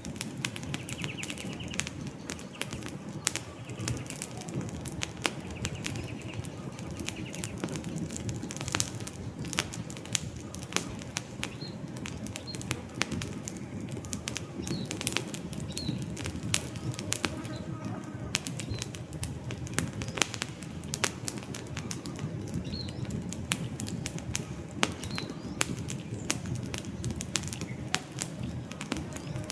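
Wood campfire crackling, with frequent sharp pops and snaps over a low steady rumble of burning. Faint short bird chirps come in now and then.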